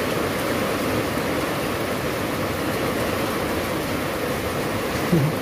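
Steady hiss of heavy rain. Near the end there is a brief low sound.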